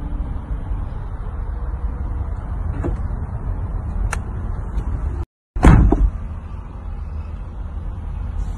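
Low steady rumble inside a Lamborghini Huracán EVO's cabin, with two small clicks and then, after a brief cut-out, a loud thump a little past halfway.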